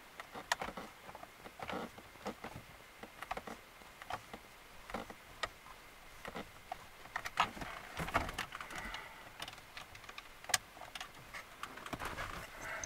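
Irregular small clicks and taps of hands and a tool working at plastic trim under a car's centre console, undoing a T20 Torx screw in a tight spot, with a few sharper clicks among them.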